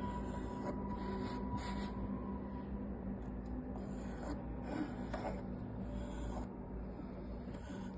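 A drafting compass's pencil lead scratching across a wooden disc as circles are drawn, in several short strokes over a steady low hum.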